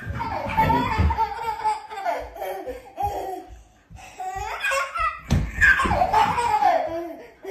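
Laughter in repeated bursts, a baby's laughing among it.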